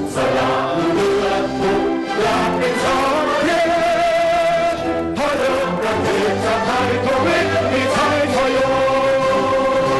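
A song with a choir singing held notes over instrumental accompaniment.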